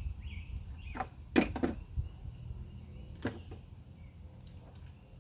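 A few sharp clinks and knocks of hand tools being handled during spark plug work, two close together a little over a second in and another near the middle, over a steady low hum and faint chirping.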